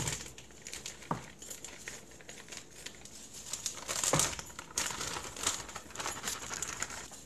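Plastic packaging bag of grated cassava crinkling as it is squeezed and emptied into a glass bowl, with a couple of knocks along the way.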